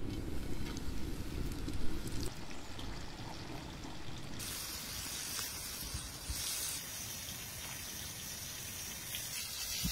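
Floured fish steaks laid into hot oil in a steel pan and sizzling as they fry: a steady hiss that turns brighter and louder about halfway through.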